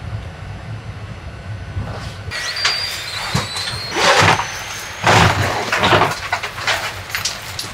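Airliner overhead luggage bin opened and a hard-shell suitcase pulled out and lifted down: a string of clunks and scraping with a brief thin squeak, the loudest knocks about four and five seconds in, over the steady low hum of the cabin.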